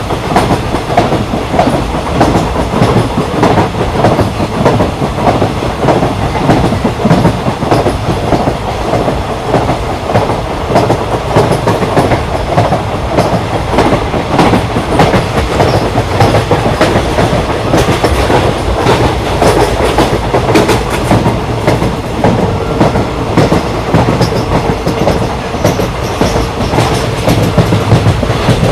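Track sound of Indian Railways ICF passenger coaches running at speed: wheels rolling over the rails with a steady loud rumble and a rapid run of clicks and knocks.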